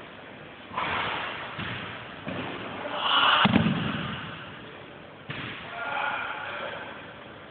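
Judo throw in the Nage no Kata: a single heavy breakfall thud about halfway through as the thrown partner lands on the tatami mats, echoing in a large sports hall. A short rush of sound comes just before the landing.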